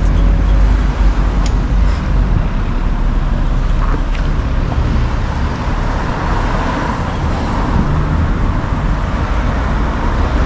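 Road traffic: a steady low rumble of motor vehicles.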